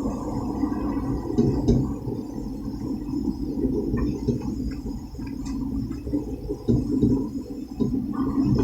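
Low, steady rumble of the St. Louis Gateway Arch tram capsule climbing inside the arch, with a few faint clicks in the middle.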